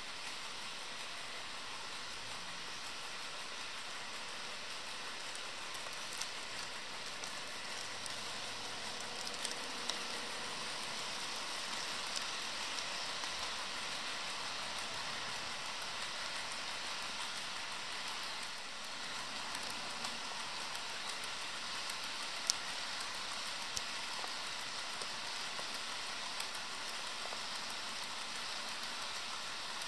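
HO scale model freight train rolling past on its track: a steady hissing whir of the wheels and motors on the rails, with occasional light clicks.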